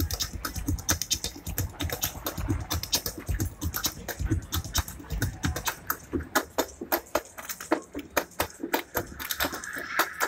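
Percussion group playing a fast, dense pattern of sharp strikes and clicks, with deep drum hits through the first half. A steady high tone joins near the end.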